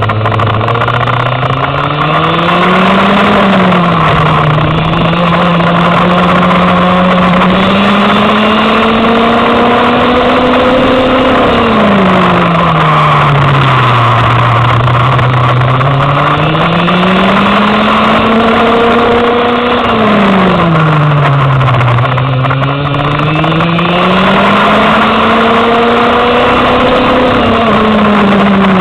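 Go-kart engine heard onboard, climbing in pitch as the kart accelerates and falling away as it slows for the corners, several times over.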